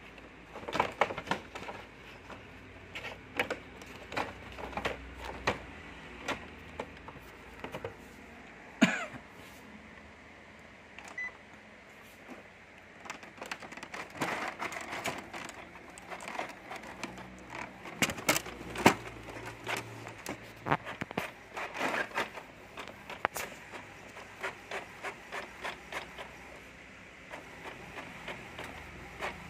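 Inkjet printer mechanism working, with a run of irregular clicks and clunks from its paper-feed and print-head carriage, plus a brief falling chirp about nine seconds in.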